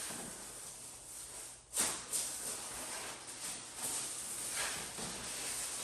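Chiropractic spinal adjustment: breathy hissing and rustling from the patient on the treatment table, with a sudden sharp sound a little under two seconds in and a smaller one just after.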